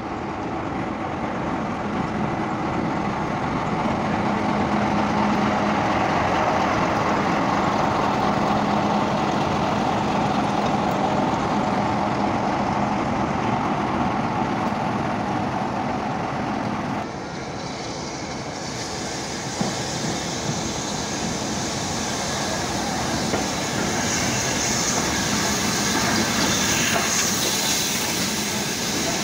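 Class 45 'Peak' diesel locomotive D123 running past with its train, its engine humming steadily under the rumble of wheels on the rails. About two-thirds of the way through the sound changes abruptly to coaches rolling past, with a high, harsh wheel noise that grows louder toward the end.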